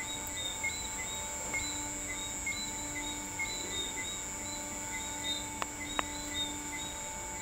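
Night-time chorus of insects: a steady high hum with a short chirp repeating about once a second. Two faint clicks come about six seconds in.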